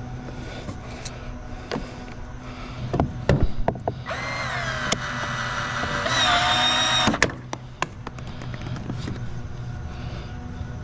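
A few knocks, then a cordless power tool's motor whines for about three seconds, its pitch stepping up partway through before it cuts off suddenly.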